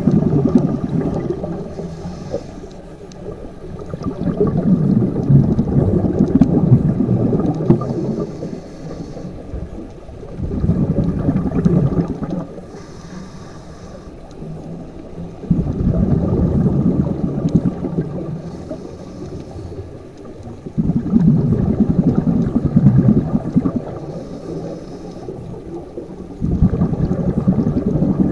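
Scuba breathing on a regulator underwater: a loud gurgling rush of exhaled bubbles about every five seconds, with a faint hiss of the demand valve during each inhale in between.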